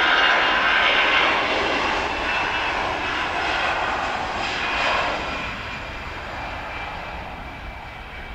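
Jet engines of an S7 Airlines twin-jet airliner at takeoff power during the takeoff roll: a loud rushing noise with high whining tones that fades steadily as the plane moves away down the runway.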